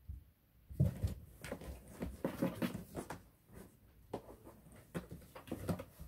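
A cat scuffling with a cardboard box on a wooden floor: an irregular run of thumps, scrapes and cardboard knocks starting about a second in.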